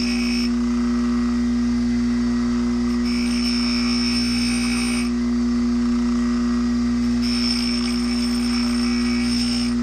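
Motor of a grinding wheel running with a steady hum while chainsaw chain teeth are ground on it. Each tooth is a hissing grinding pass of about two seconds: one ends just after the start, another comes about three seconds in and a third about seven seconds in.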